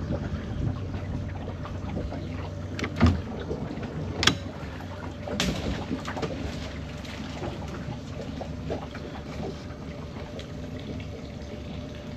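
Low, steady water and boat noise from a small boat moored against mangroves, with a few sharp knocks about three, four and five and a half seconds in as a crab-pot rope is hauled in over the side.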